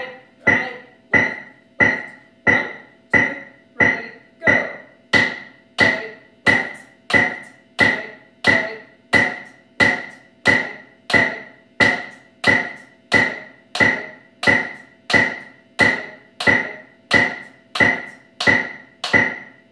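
Metronome set to 90 beats per minute, clicking steadily with a short, high beep on each beat.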